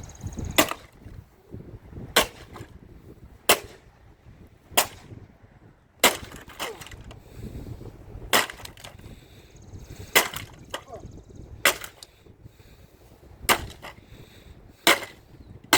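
Dirt Devil vacuum cleaner's plastic body being smashed with repeated swung blows: about ten sharp cracking hits, roughly one every second and a half.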